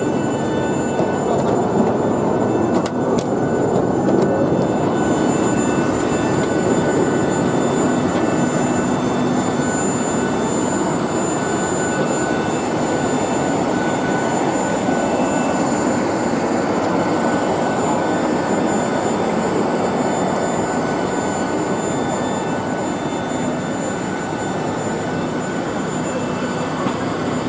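Steady rush and whine of a jet aircraft's turbine close by, several thin high tones held over a broad rush; it eases slightly near the end.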